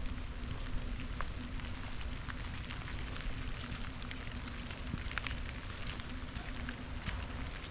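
A river running steadily under light rain, with scattered raindrop ticks over the steady rush of water.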